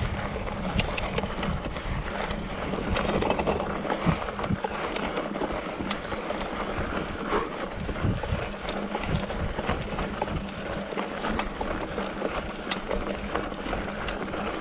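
Mountain bike rolling over a dry, rocky dirt trail: a steady crunch and rumble of the tyres on gravel, with frequent small knocks and rattles as the bike goes over stones.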